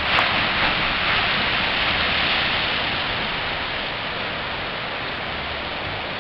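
Ocean surf breaking on a beach, a steady rushing noise that is loudest in the first couple of seconds and eases a little after.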